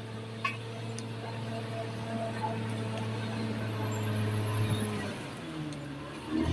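Caterpillar D6R XL bulldozer's diesel engine running steadily. Its pitch sags about five seconds in, then rises sharply as it revs up near the end.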